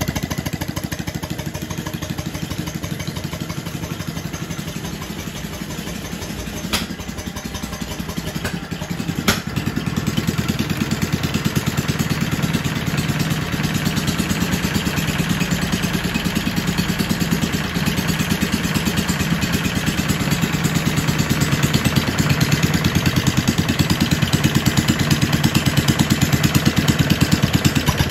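Kohler K301 single-cylinder cast-iron engine idling steadily, running with its fuel pump left off. Two sharp clicks come partway through, after which the engine runs a little louder.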